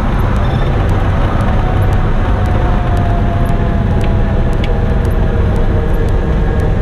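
Cessna 172's piston engine and propeller running steadily while the plane rolls out on the runway after landing, heard from inside the cabin as a constant low drone. A faint tone slides slowly down in pitch in the middle.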